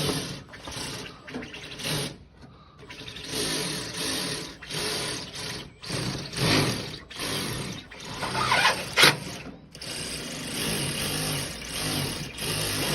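Cordless power shears cutting through roofing in short runs, starting and stopping about every second, with a harsh cutting noise in each run.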